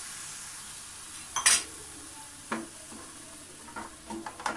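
Grated bottle gourd sizzling steadily in a hot metal pan. One brief loud clatter comes about a second and a half in, then a wooden spatula scrapes and stirs the pan in several short strokes near the end.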